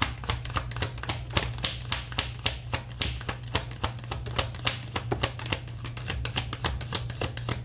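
Rapid clicking, about five a second, of a tarot deck being shuffled and handled, over a low steady hum.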